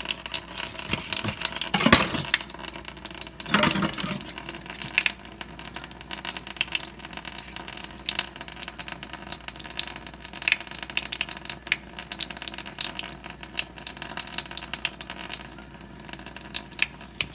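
Kitchen tap running into the sink while raw chicken is rinsed and handled, with scattered small clicks and two louder knocks about two and four seconds in.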